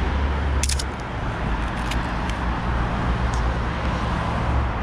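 Street traffic: a car running past with a steady low rumble, and a sharp click about half a second in.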